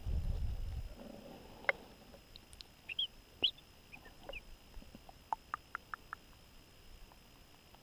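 A low rustle and handling noise for about the first second, then scattered faint clicks and a few brief high chirps.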